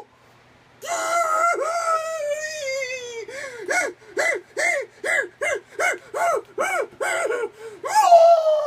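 A man wailing in a high-pitched voice, starting about a second in. One long wail falls in pitch, then comes a run of short sobbing cries, about two or three a second, and a louder falling wail near the end.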